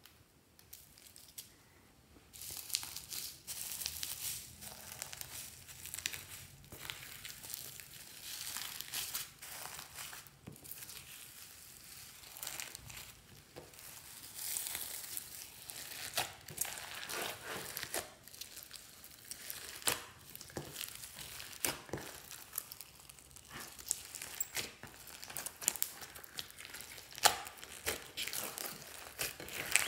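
Hands squeezing and kneading fluffy slime mixed with foam beads and sequins: a dense, irregular run of small sticky clicks, pops and squelches, starting about two seconds in.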